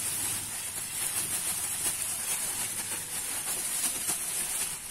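Thin plastic bag of breading flour rustling as it is twisted shut, over a steady high hiss.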